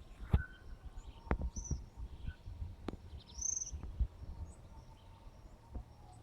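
A small bird gives a few short, high chirps, the longest about three and a half seconds in, over scattered sharp clicks.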